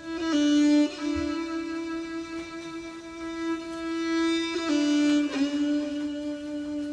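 Slow instrumental music: a bowed string instrument playing a single melody line in long held notes that change pitch only a few times.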